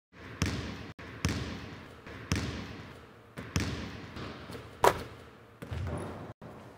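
Sound effects for an animated logo: a series of ball-bounce thuds, about seven, roughly one a second, each trailing off in a reverberant tail, with a sharper crack near the middle.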